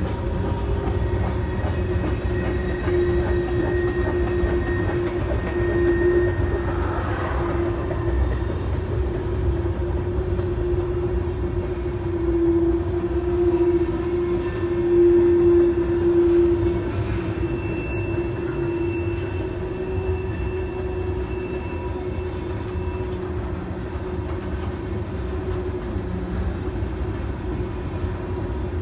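Norfolk Southern freight train rolling by: a continuous rumble of wheels on the rails, with a steady tone running through it.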